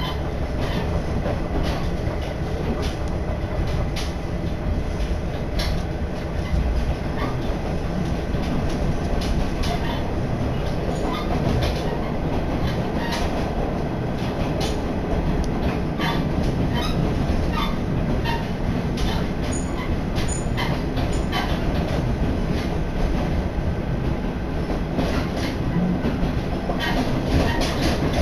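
Train running along the line, heard from inside the passenger car: a steady rumble with many short, irregular clicks from the wheels on the track.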